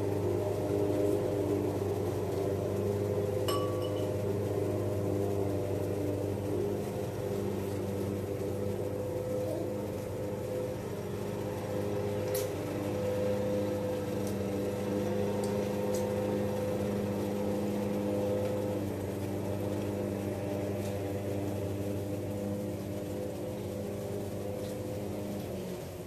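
Steady electric hum of a kitchen appliance running, made of several even low tones, with a few light clinks of a spoon against a plastic plate.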